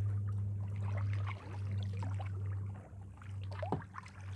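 Kayak paddles dipping into the water, with small splashes and drips running off the blades, over a steady low hum.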